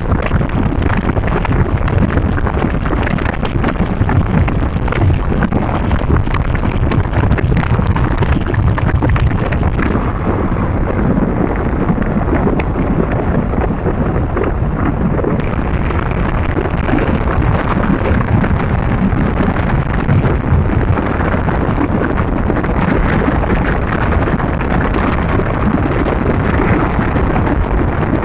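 Steady wind noise buffeting the microphone in a moving vehicle, over a constant low rumble of the vehicle on the road.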